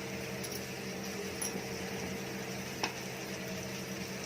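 Knife cutting potatoes: a few light clicks, the sharpest about three seconds in, over a steady hum and hiss.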